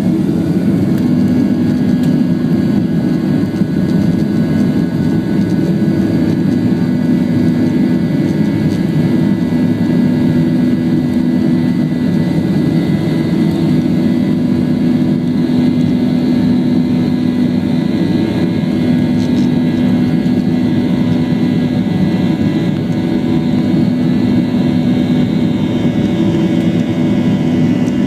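Boeing 737-800's CFM56-7B jet engines running, a loud, steady drone with a constant low hum and no change in pitch.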